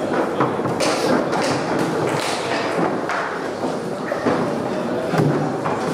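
Foosball table in play: the ball and plastic men knocking, rods clacking, with several sharp knocks at irregular intervals. Voices in a large hall underneath.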